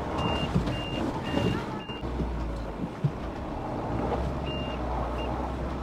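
Mahindra Scorpio SUV's engine running under load as it pulls on a tow strap against a tractor, with a low rumble from about two seconds in. Short, high electronic warning beeps sound repeatedly, several in the first two seconds and twice more near the end.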